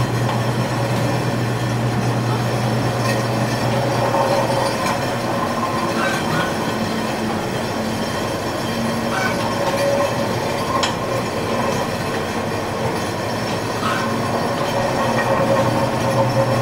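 Chain-drive poultry manure scraper and cross gutter cleaner running: a steady mechanical hum and rattle of the drive chain and galvanized steel scraper, with a few scattered clicks.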